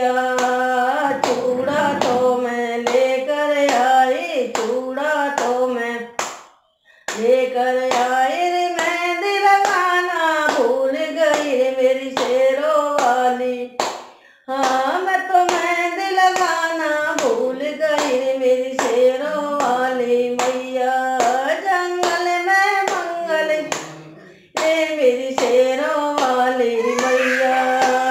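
A woman singing a Hindi devotional bhajan to the goddess, clapping her hands in a steady beat, with brief breaks for breath between lines.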